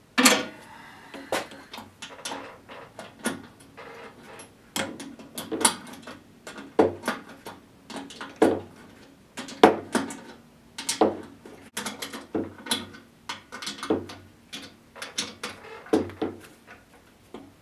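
A wrench tightening the lathe's motor-mount bolts to set the belt tension: irregular metal clanks and clicks, about one or two a second, some briefly ringing.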